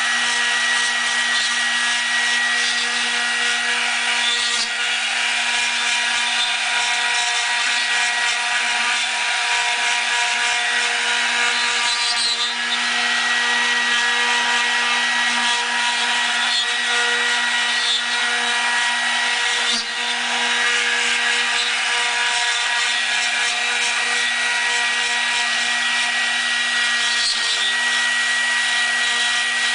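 CNC router spindle with an R1.5 cutter milling oak: a steady high whine over the hiss of the bit cutting wood. The sound dips briefly four times, about every seven to eight seconds.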